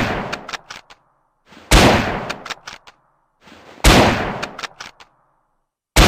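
Carcano M91 bolt-action rifle, chambered in 6.5×52mm, firing three single shots about two seconds apart, each with a decaying tail and followed by a quick run of short sharp clicks.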